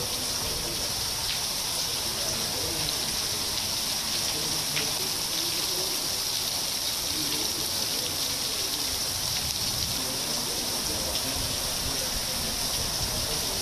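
Heavy rain falling steadily on a wet paved road, an even hiss with a few sharper drop ticks.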